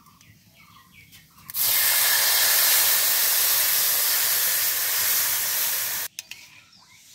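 Milk poured into a hot karahi of vermicelli fried in ghee, hissing and sizzling loudly as it hits the hot fat and pan. The hiss starts about a second and a half in and cuts off suddenly about six seconds in.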